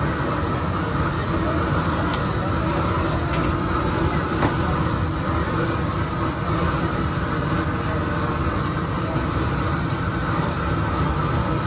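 Steady low rumble of busy street background noise, with a few faint sharp clicks in the first half.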